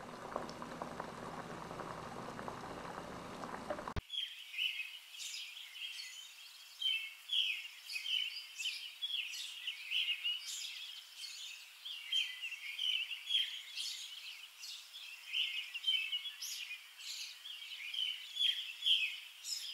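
Water at a rolling boil in an aluminium coffee pot over a denatured-alcohol stove, a steady seething noise with a low hum. About four seconds in it cuts off abruptly to birds chirping, many short, high chirps overlapping steadily.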